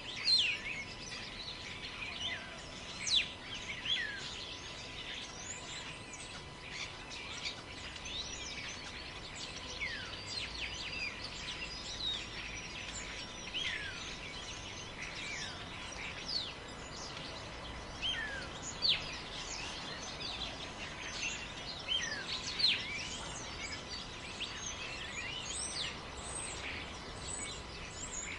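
Forest birds chirping and calling throughout, many short quick notes that sweep down in pitch, the louder ones standing out every second or two. Beneath them runs a steady hiss of wind in the forest.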